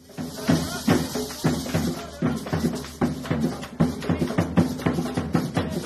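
Drum-led percussion music that starts abruptly, with fast, dense drum strokes several times a second over a steady low backing.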